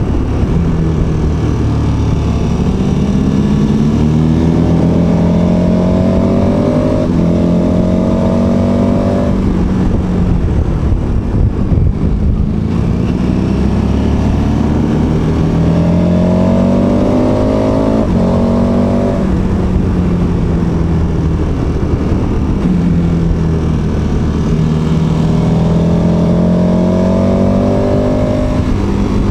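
KTM 1290 Super Adventure S's 1301 cc V-twin engine running under way, heard from on board. The revs climb and fall away three times as the bike accelerates and rolls off.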